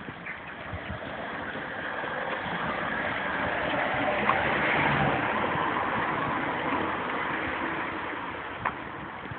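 A road vehicle passes by with a noise that swells to a peak midway and then fades away.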